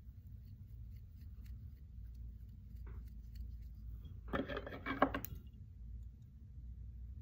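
Small fly-tying scissors snipping material at the jig, a brief cluster of crisp cuts and rustles about four to five seconds in.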